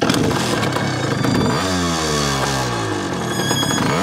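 Motorcycle engine running hard with a dense rattle, then revved: the pitch jumps up sharply and slowly falls away, and jumps again near the end.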